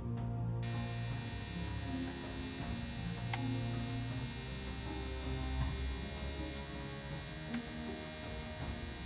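A small electric motor appliance running steadily with a hum and high whine. It switches on abruptly about half a second in.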